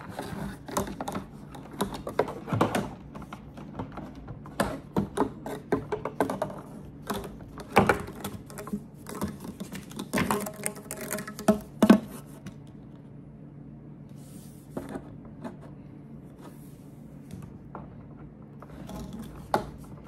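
Plastic parts of a portable camping sink being handled: irregular knocks, clicks and rattles as a corrugated plastic drain hose is worked onto the sink, thinning out after about twelve seconds.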